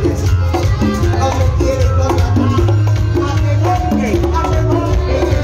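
Live cuarteto band music, an instrumental stretch with a steady bass line, melody notes above it and hand-drum percussion.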